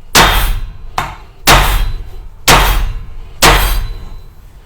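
Heavy steel bone cleaver chopping into a metal heating pipe: four hard strikes about a second apart, each ringing briefly and fading.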